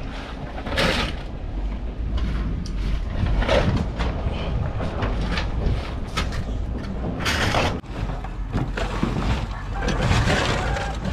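Shovels scraping along a truck bed and scooping piles of split coconut halves, the dry shells clattering as they shift, in irregular strokes about once a second over a steady low rumble.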